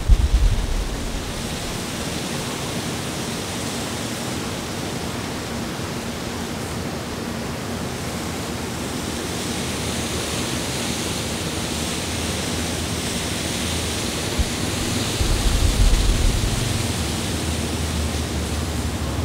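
Steady outdoor ambience: an even hiss of open air and wind, with a low rumble of wind buffeting the microphone about fifteen seconds in.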